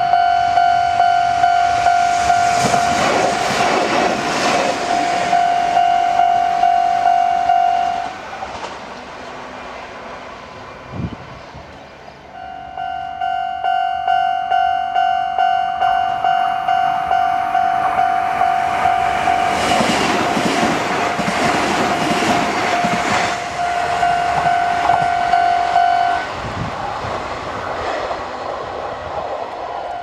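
Japanese railway level-crossing warning bell ringing in a fast, steady, repeating electronic ding, with Kintetsu electric trains rumbling and clattering over the crossing while it rings. The bell stops about eight seconds in, starts again about four seconds later for a second train, and cuts off again a few seconds before the end, then resumes.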